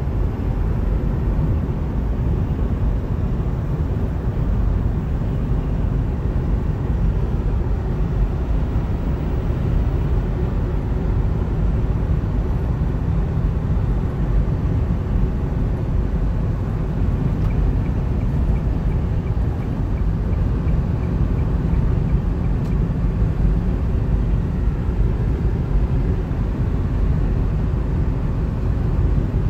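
Steady road and engine noise inside a Hyundai's cabin while cruising on a highway: a constant low rumble of tyres and engine with no distinct events.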